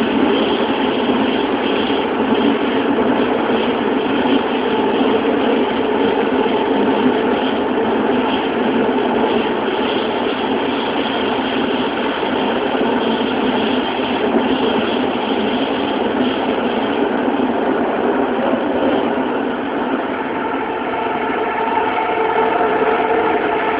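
Early-batch Toei 12-000 series linear-motor subway car running through a tunnel, heard from inside the car: a loud, steady running noise of wheels and tunnel. About twenty seconds in, several steady whining tones rise out of the noise, from the car's Hitachi GTO-thyristor VVVF inverter.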